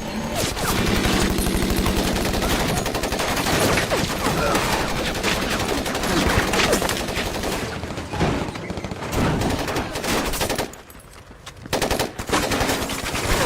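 Sustained automatic gunfire, many rapid shots overlapping in long bursts, with a brief lull about eleven seconds in before the firing starts again.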